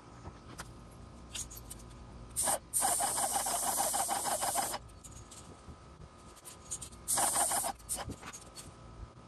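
Airless paint sprayer gun hissing as the painter triggers it in bursts against a house wall: a short spurt, a longer spray of about two seconds, then another short spray near the end.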